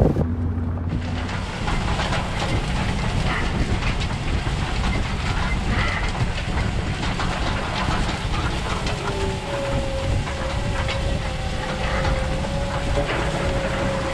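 Dalton UAN side-dress toolbar pulled through a cornfield behind a tractor: a steady clatter and rattle of the coulters and steel frame cutting the soil, over a low engine rumble. A steady whine joins in about nine seconds in.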